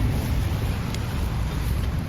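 Wind buffeting the microphone outdoors: a steady, fluttering low rumble, with a faint click about a second in.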